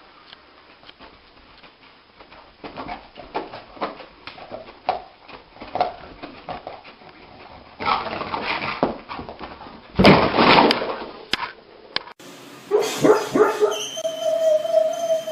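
Dogs whimpering and giving muffled yips and woofs in their sleep. A run of short, quick sounds includes two louder bursts. Then comes a high whine, held for about two seconds near the end.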